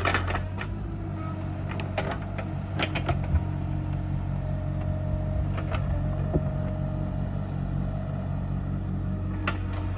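Bobcat E37 mini excavator's diesel engine running steadily, with scattered sharp metallic clanks from the working machine.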